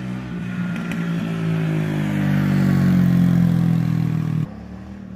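Pit bike engine running as the bike rides past, growing louder and easing slightly in pitch, then dropping off suddenly to a quieter drone about four and a half seconds in.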